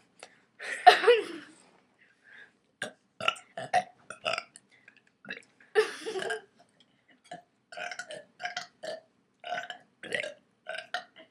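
A girl burping over and over, in a string of separate burps. There are longer ones about a second in and about six seconds in, and a quick run of short burps near the end.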